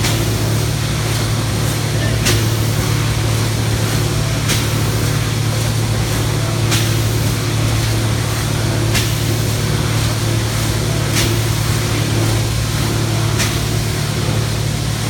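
Plate-forming production line running: a steady low machine hum under wide noise, with a short sharp hiss or snap about every two seconds as the line cycles.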